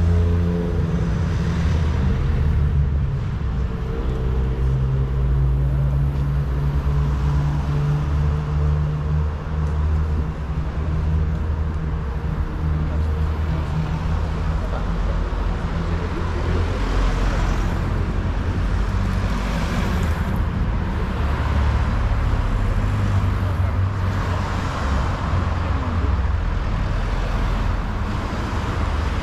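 City street traffic: a steady low engine rumble from vehicles close by, with several cars passing during the stretch.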